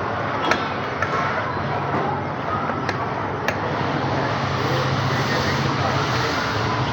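Motor vehicle engine running amid street traffic noise, its low hum growing stronger about halfway through, with a few sharp clicks.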